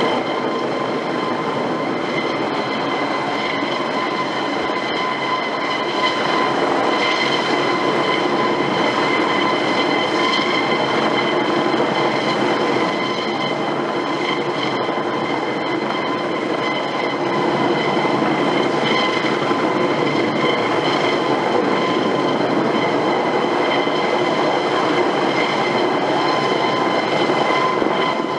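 AS365 Dauphin twin-turbine helicopter running steadily: a dense, continuous rush with a steady high-pitched turbine whine made of several tones layered on top.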